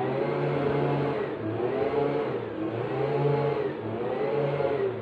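A machine's engine or motor revved up and down over and over, its pitch rising and falling about once a second above a steady low hum, being pushed on and off in a way that sounds annoying.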